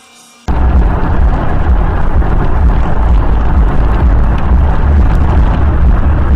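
Loud, steady rumble and wind noise from a moving car, picked up by a dashcam microphone, starting abruptly about half a second in.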